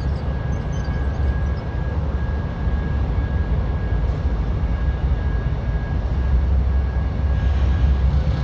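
Union Pacific diesel locomotive UP 96 running as it slowly moves a passenger car: a steady low engine rumble with a faint steady whine above it, growing slightly louder near the end.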